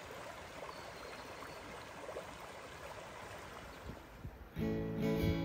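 Flowing stream water, a steady rushing. Strummed acoustic guitar music starts loudly near the end.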